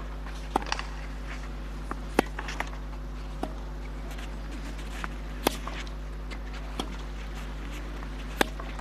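Tennis rally on a clay court: sharp racket strikes on the ball every couple of seconds, with fainter bounces and court sounds between, over a steady low broadcast hum.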